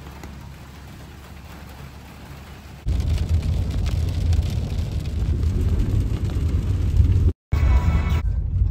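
Vehicle cab on a wet road: a loud, steady low rumble of engine and tyres with a hiss of rain, starting suddenly about three seconds in after a stretch of faint steady hum, with a brief cut near the end.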